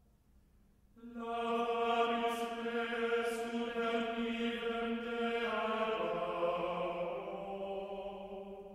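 Choral music: voices holding long, sustained chords in chant style. It comes in about a second in, moves to a lower chord just past halfway, and fades toward the end.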